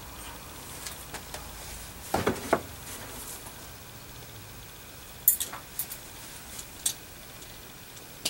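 Light knocks and clicks from a round shield with a spike pressure-fitted into its boss being handled and turned: a short cluster about two seconds in, sharper clicks around five seconds in, and one more near seven seconds.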